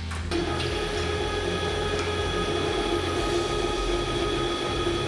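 CNC tube feed, straighten, cut and chamfer machine running: a steady mechanical hum and whine that starts a moment in and holds level.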